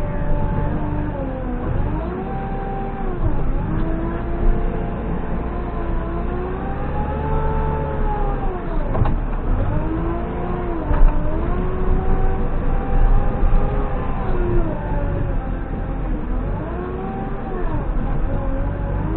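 JCB 3CX backhoe loader's diesel engine running, its pitch rising and falling again and again every few seconds as the engine speed changes.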